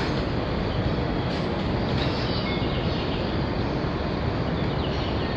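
E259 series Narita Express electric train pulling slowly away from a station platform, giving a steady low rumble of wheels and running gear.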